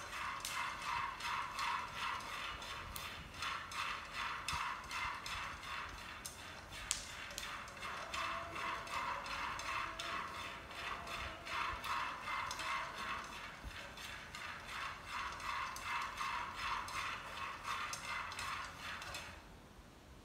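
Peanuts being stirred in a frying pan, with the utensil scraping the pan and the nuts rattling in rhythmic strokes. The stirring stops about a second before the end.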